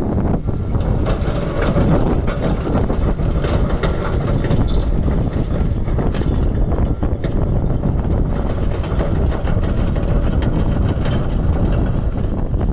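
Komatsu PC138US-10 hydraulic excavator's diesel engine running steadily, with many sharp clanks and rattles over it from about a second in until near the end.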